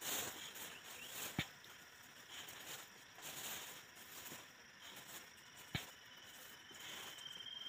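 Quiet outdoor ambience with soft rustling from handwork and two small sharp clicks, one about a second and a half in and one near six seconds. From about five and a half seconds a steady high insect drone sets in and grows louder.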